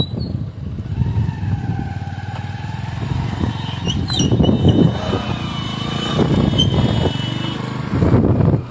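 Motorcycle being ridden, heard from the saddle: the engine runs under rough wind buffeting on the microphone. A large bus or truck goes by close alongside around the middle.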